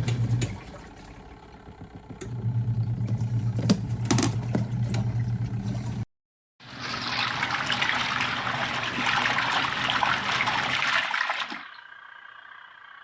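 Twin-tub portable washing machine: its motor hums, stops about half a second in and starts again around two seconds with a few sharp clicks. After an abrupt cut, water rushes loudly through the machine for about five seconds, then eases off.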